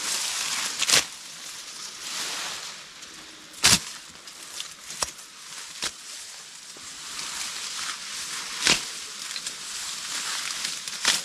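Rustling of elephant grass (BRS Kurumi) leaves as stalks are gathered and cut by hand, with about half a dozen sharp snaps as stalks are cut through.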